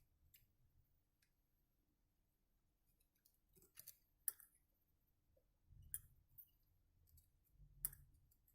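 A few sharp, light clicks and taps of small tools and parts being handled while wires are soldered onto power-plug pins: a short cluster about four seconds in, then single clicks about two seconds apart, against near silence.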